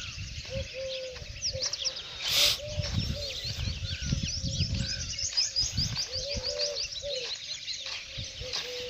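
Morning bird chorus: many small birds chirping quickly and continuously, with doves cooing in low repeated notes. A short loud rustle comes about two and a half seconds in, over a low rumble.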